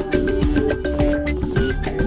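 Background music with a steady beat and a melody of short, bright notes.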